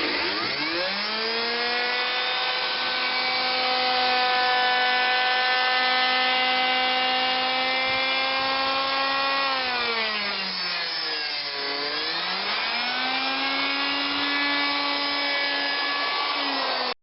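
Electric router running through the next cutting pass: a high, steady motor whine that spins up at the start, drops sharply in pitch about two-thirds of the way through, then climbs back to full speed.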